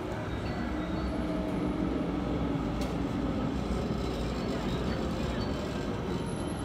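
Street tram running past on its rails: a steady rumble of wheels on track with a low motor hum that drifts slowly in pitch.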